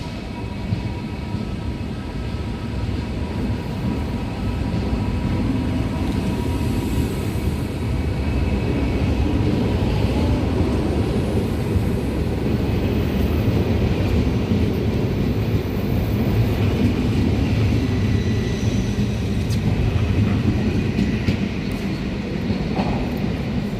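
ICM (Koploper) electric intercity train pulling out of the station. Its low rumble and wheel noise build over the first ten seconds or so and then hold steady, with faint high tones over it.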